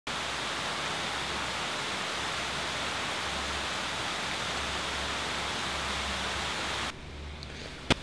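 Heavy rain falling, a steady hiss that cuts off about seven seconds in. A single sharp click follows just before the end.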